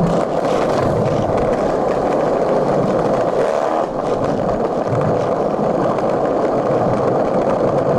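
Skateboard wheels rolling downhill over pavement at speed, a loud, steady rolling noise.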